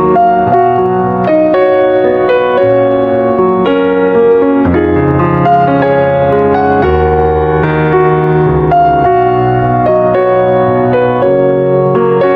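Piano music: a melody of held notes, changing about once or twice a second, over low bass notes.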